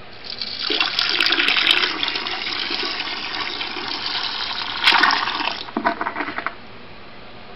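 Toilet flushing: a loud rush of swirling water that surges about five seconds in, then breaks into a few gurgles as the bowl drains and stops.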